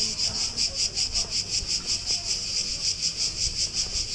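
Cicadas singing in a steady high-pitched buzzing chorus that pulses evenly about seven times a second.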